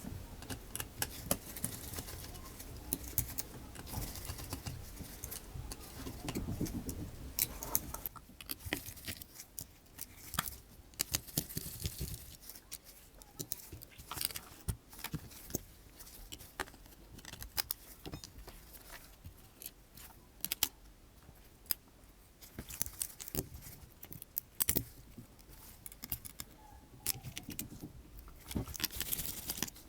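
Small hand tools clicking, tapping and scraping on a smartphone being taken apart, with many irregular sharp clicks and some low handling rumble in the first part.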